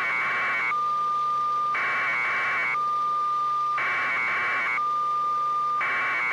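Electronic alert signal repeating in a strict cycle: about a second of a harsh, buzzy warble, then about a second of a steady high beep, over and over.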